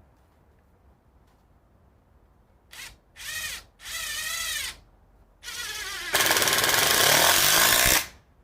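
Ryobi PBLID02 brushless impact driver in assist mode driving a wood screw: a few short spurts of motor whine starting about three seconds in, then it ramps up into loud full-power impacting for about two seconds before stopping abruptly.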